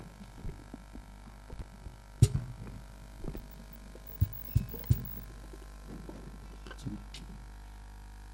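Quiet gap between songs on a band's stage: a steady low electrical hum from the amplification, with scattered soft thumps and a few sharper knocks, the loudest about two seconds in and three more between four and five seconds in.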